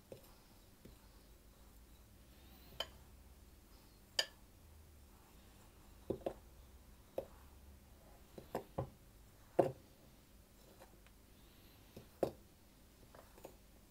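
A mixing utensil knocking and clinking against a bowl at irregular intervals as chopped pistachios are stirred roughly through flour.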